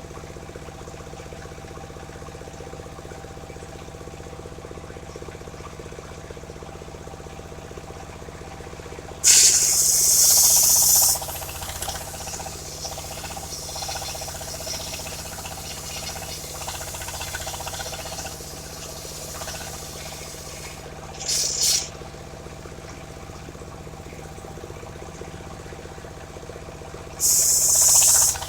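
Circular-saw sawmill with its engine running steadily. Three loud bursts of high hissing noise come about nine seconds in (lasting about two seconds), briefly near the middle, and again near the end, as the blade cuts through waru wood.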